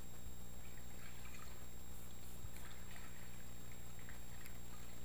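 Water splashing and trickling faintly in short irregular patches as someone moves through the surface of a flooded cave passage, over a steady low hum.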